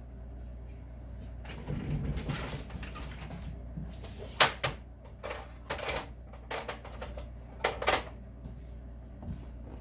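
Small metal guitar-tuner parts handled on a workbench: a stretch of rustling about two seconds in, then a string of sharp clicks and clinks, the loudest about four and a half and eight seconds in, over a steady low hum.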